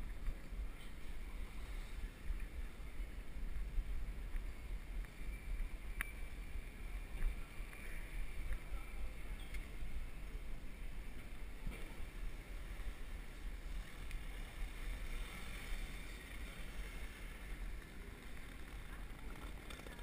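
Wind buffeting a bicycle head-cam's microphone, mixed with the rumble and rattle of the bike rolling over cobblestones; a steady, jittery noise with one sharp click about six seconds in.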